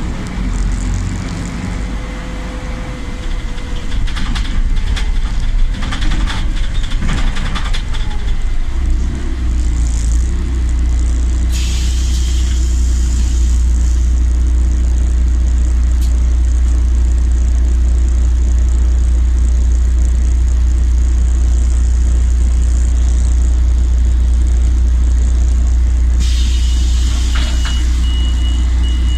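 Solaris Urbino 12 city bus heard from inside the passenger cabin: engine and running noise that settles into a strong, steady low drone about nine seconds in as the bus gets under way, with bursts of compressed-air hissing.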